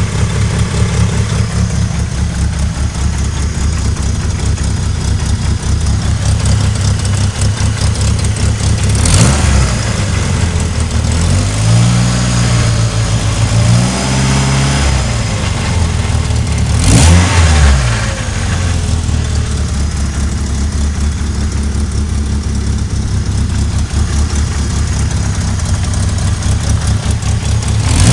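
Vehicle engine running, with a grinding noise from its transmission, which the owner wonders is a sign of low transmission oil. The engine revs up and back down twice in the middle, and two sharp, loud noises stand out, one just before the revs and one just after.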